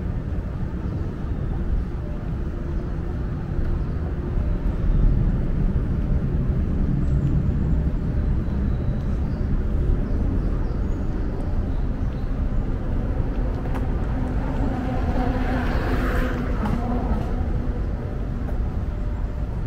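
Steady low rumble of road traffic, with something passing close and briefly louder about three-quarters of the way through.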